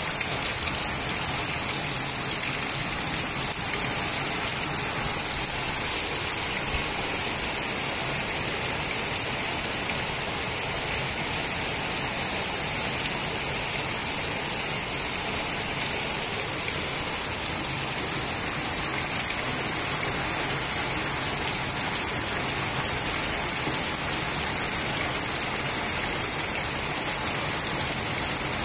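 Heavy rain falling on a flat concrete rooftop: a dense, steady hiss with no let-up.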